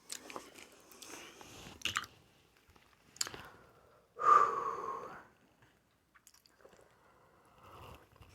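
Close-miked eating of snow crab: a few sharp cracks and chewing, with one louder sound lasting about a second, a little after four seconds in.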